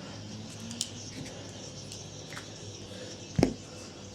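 A few light ticks and one sharp knock about three and a half seconds in, over a faint steady hum: hand tools being handled and set down on metal.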